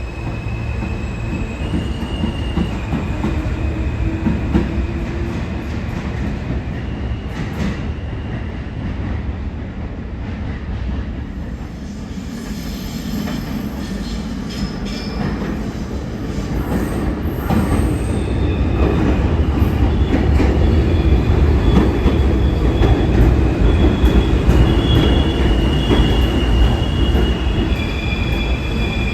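R160 New York City subway train running on the track with a heavy rumble, its wheels squealing in high, steady tones. It grows louder in the last third as the train comes closer.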